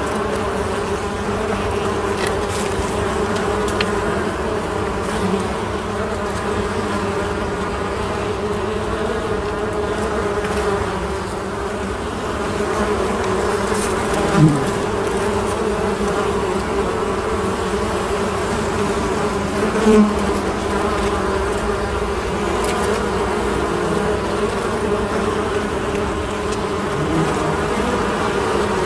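Honeybees of a colony buzzing together in a steady, dense hum, with two brief louder buzzes standing out about halfway through and again a few seconds later.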